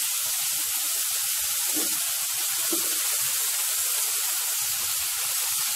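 Julienned carrot, capsicum and onion frying in hot oil in a wok with sauces just added, giving a steady sizzle.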